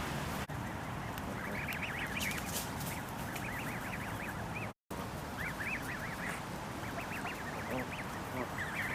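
Canada goose goslings peeping: quick, high calls that rise and fall, coming in clusters over a steady background hiss. The sound cuts out for a moment about five seconds in.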